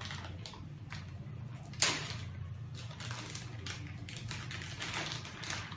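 A box being opened and rummaged by hand: irregular rustling, scraping and small clicks, with one sharp knock about two seconds in.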